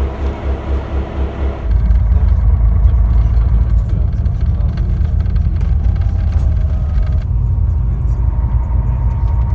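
Slovenian Railways class 664 diesel locomotive idling with a pulsing low throb, about three beats a second. After about two seconds it gives way suddenly to the steady low rumble of a coach bus driving, heard from inside the cabin.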